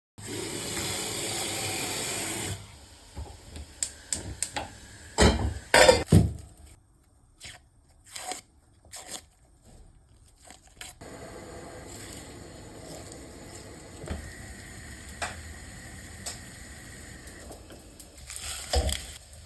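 Kitchen preparation sounds: a burst of rustling noise, then two loud knocks and scattered small clicks and scrapes, then a steady low hiss.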